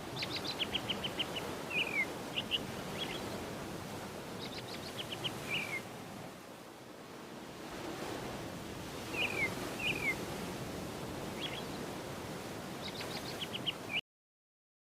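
A tame bird known locally as sirtu or sirpu calling, in repeated phrases of quick high chips followed by a few short down-slurred notes, every few seconds. A steady rushing background noise runs underneath. The sound cuts off suddenly near the end.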